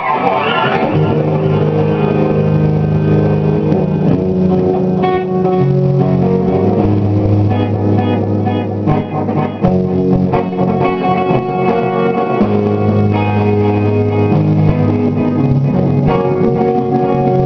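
Stoner-rock band playing electric guitars and bass guitar in a riff of long held notes that change every second or two. A falling swoop fades out in the first second.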